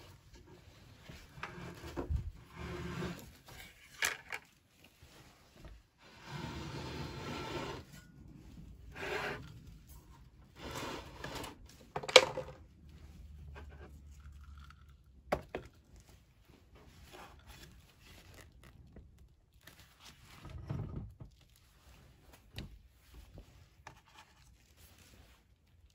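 Handling noises: rubbing and scraping as leather-gloved hands pick through trail mix and move things about a plastic meal tray, with scattered clicks and one sharp knock about twelve seconds in.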